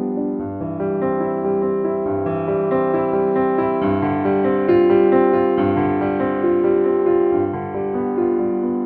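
Background music: a soft piano or electric piano piece, melody over sustained chords.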